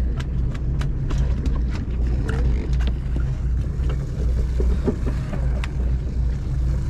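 Sportfishing boat's engine running with a steady low drone, with scattered sharp clicks and knocks over it.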